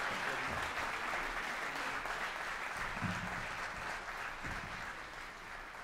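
Audience applauding, a dense steady clapping that slowly dies down toward the end.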